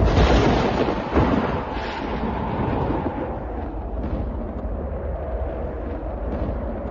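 A thunderclap bursts in at the start, with a second jolt about a second in, then rolls on as a long, deep rumble that slowly eases off.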